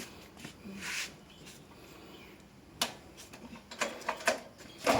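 A few sharp clicks and knocks, with a short rustle about a second in, as the small wood grinder is handled and readied to start.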